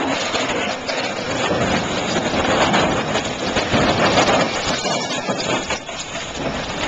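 A mobile crane toppling over onto its side: a continuous crashing, scraping noise of metal and falling earth and debris, easing slightly near the end.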